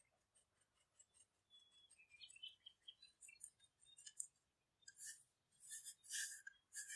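Faint, quick ticking of a fine mesh sieve being shaken as flour is sifted into a glass bowl, turning into a few louder rasping swishes of the sieve near the end.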